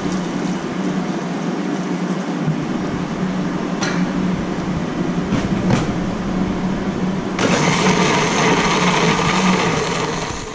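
A steady hum with two short knocks as the blender jar is set on its base, then about two-thirds of the way in an electric countertop blender starts and runs, pureeing shallots, garlic and red chillies with water into a paste.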